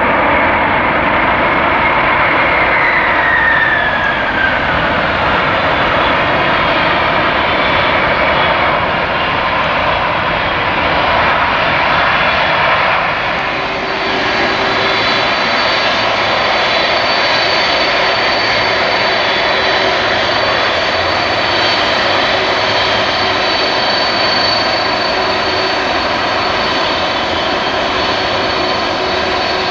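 Jet engines of a Boeing 747-400 freighter slowing down on the runway after landing: loud, steady engine noise with a whine that falls in pitch over the first few seconds. After a break about 13 s in, the engines run on with a steady high whine.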